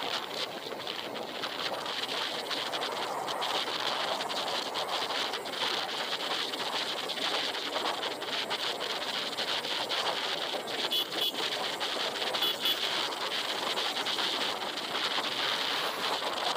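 Steady wind rush on the microphone from riding along a road, mixed with vehicle and road noise. A few short high pips sound about eleven and twelve seconds in.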